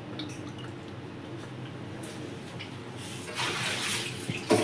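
A steady low hum, with a spell of rustling about three seconds in and a couple of sharp knocks at the very end.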